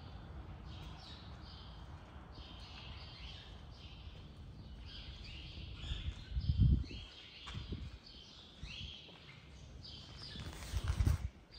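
Small birds chirping over and over with short, quick downward chirps, over a low rumble. Two loud, low thumping bumps come about halfway through and near the end.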